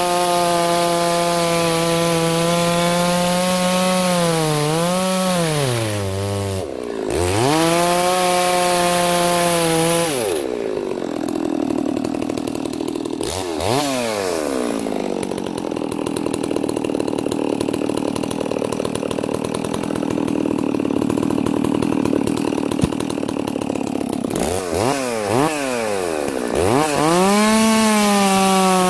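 Farmertec Holzfforma G660 two-stroke chainsaw with a 36-inch bar cutting through a large dry hardwood log at full throttle, its pitch dipping briefly a few times under load. About ten seconds in, the steady high note gives way to a rougher, lower sound with quick revs up and down, and full-throttle cutting resumes near the end.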